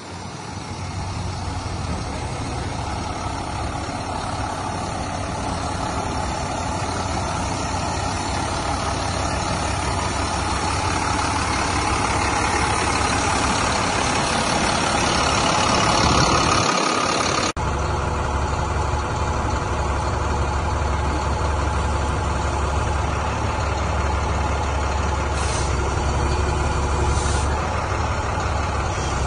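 The diesel engine of a 2008 International 7400 tandem-axle grapple truck idling steadily. About two-thirds through there is a sudden break, after which its low rumble is stronger.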